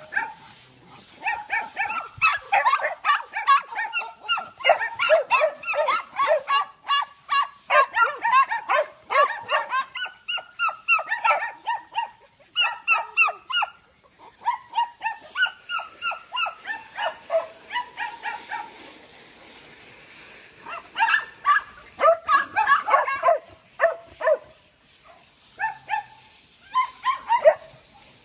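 Several dogs barking and yapping in quick overlapping runs, with a lull about two-thirds of the way through and a few last barks near the end.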